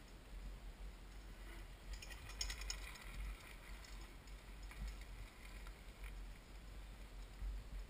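Mountain bike rolling past on a stony dirt trail, its drivetrain ticking and rattling, loudest from about two to three and a half seconds in.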